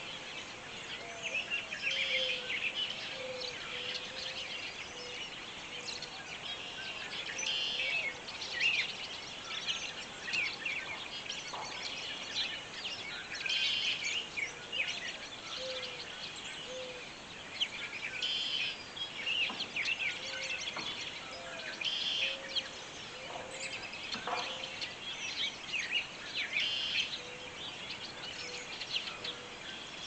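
Many birds chirping and singing together, a dense overlapping chorus of quick high calls, with a low short note repeated underneath and a few faint knocks.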